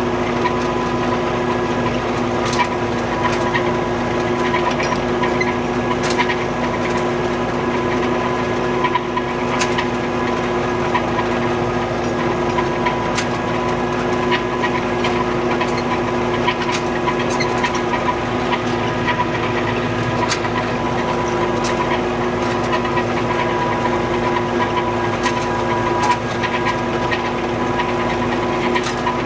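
An old farm tractor's engine running at a steady speed, with scattered sharp clicks and snaps over it.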